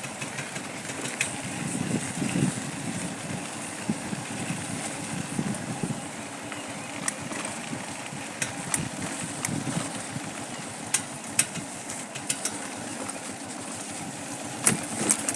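Motorcycle engine running steadily while riding on a rough road, with scattered sharp knocks and clicks throughout.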